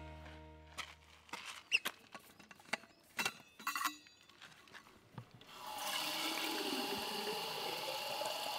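A few clicks and knocks as a steel bottle is opened and handled, then water running from an outdoor tap into the stainless steel bottle, the pitch rising as it fills.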